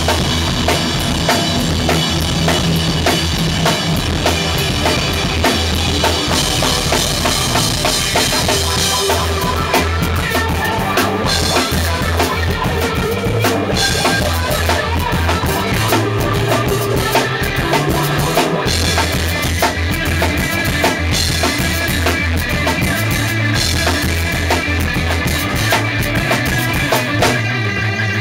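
A rock band playing live in a small room: a Tama drum kit played hard with kick drum, snare and cymbals, under sustained electric guitar chords.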